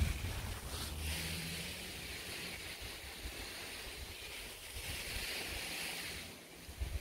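Garden hose spray nozzle hissing as water sprays onto plants, stopping about six seconds in.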